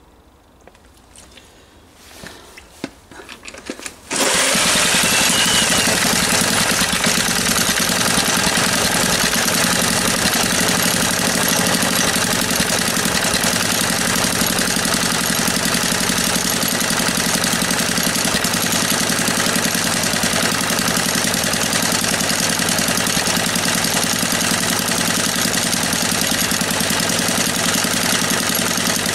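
A few light handling clicks, then a small stationary petrol engine catches about four seconds in and runs steadily at a constant speed.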